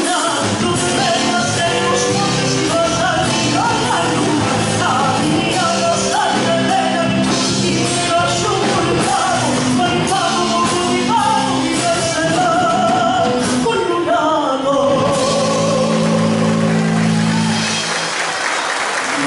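A song: singing over instrumental accompaniment with percussion, ending on a long held chord near the end.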